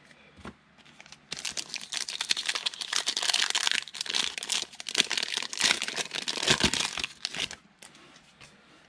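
A foil pack of Panini Prizm football cards being torn open and its wrapper crinkled: a dense run of crinkling and tearing that starts about a second in and stops shortly before the end.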